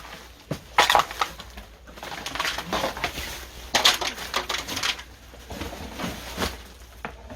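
Rubbish being cleared: crunching and clattering of trash and household items being gathered and crushed, with the loudest crashes about a second in and about four seconds in.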